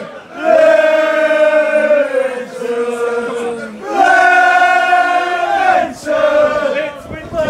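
Football fans chanting in the stand, with one loud male voice close by drawing out long held notes.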